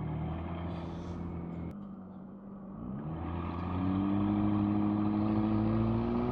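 McLaren 600LT's twin-turbocharged V8 running under way: the engine note holds steady, eases off about two seconds in, then rises steadily in pitch and gets louder as the car accelerates.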